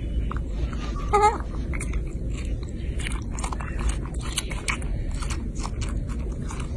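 Baby macaque biting and chewing a soft peeled fruit: irregular wet clicks and crunches of eating, close up. A short wavering squeak about a second in.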